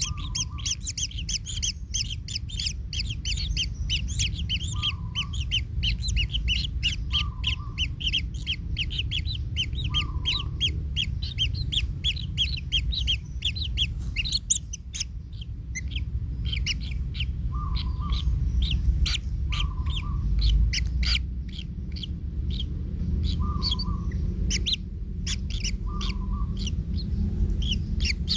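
Kingfisher nestlings chirping in a fast, continuous run of high calls several per second, which thins into scattered chirps about halfway through. A short, lower call repeats every two to three seconds over a steady low rumble.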